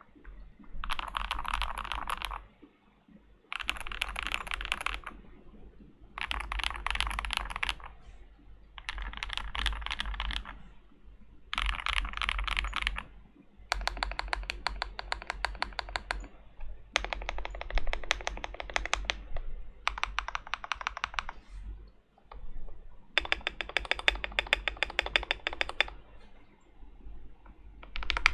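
Typing on a KBD75 V3.1 mechanical keyboard with a brass plate and lubed KTT Rose linear switches: about nine bursts of fast keystrokes with short pauses between them, the later bursts running as even, rapid strings of strokes.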